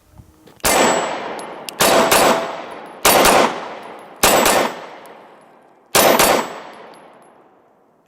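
Glock 26 Gen 4 9mm pistol fired in slow, deliberate single shots, five spaced about one to two seconds apart and another near the end. Each sharp report trails off in a long echoing decay.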